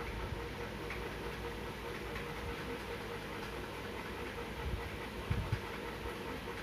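Steady low background rumble and hiss, machine-like, with a few soft knocks about five seconds in.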